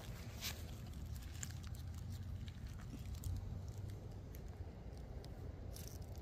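Faint rustling and small clicks of leaves and produce being handled and picked by hand, over a low steady rumble.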